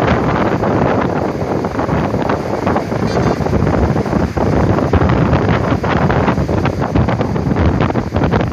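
Water from a burst water main rushing down a rocky slope in several cascades and flowing across a flooded road, a steady loud rush mixed with wind buffeting the microphone.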